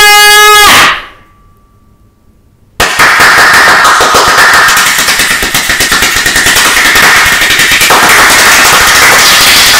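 A man's long shout of "yay!", then a short quiet gap. After that, palms rubbing together right against the microphone make a dense, loud, continuous crackle, overdriven by a recording volume set far too high.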